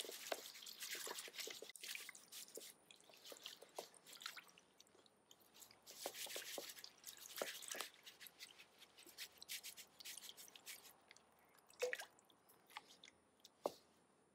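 Faint, irregular swishing of water and wet lamproite gravel shifting on the mesh of a hoop-framed saruca sieve as it is rocked and shaken in a tub of water. Scattered small clicks and ticks of grit and the hoop rim run through it, with a couple of sharper ticks near the end.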